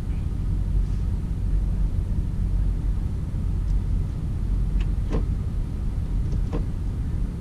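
BMW X5 xDrive50i driving, heard as a steady low rumble, with a few short clicks or knocks a little past the middle.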